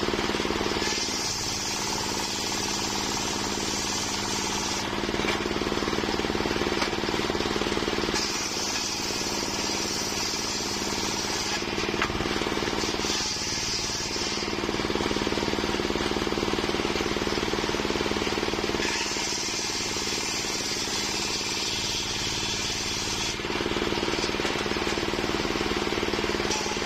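Homemade circular sawmill running steadily while its blade saws waru (sea hibiscus) wood. A higher sawing noise comes and goes four times, each lasting one to four seconds, over the steady drone of the machine.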